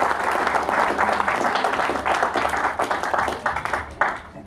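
Audience applauding, the clapping thinning out and dying away after a last burst about four seconds in.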